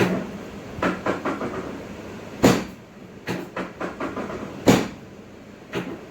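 Irregular knocks and thumps from a chiropractic adjustment on a treatment table. Two sharp ones, about two and a half and nearly five seconds in, are louder than the rest.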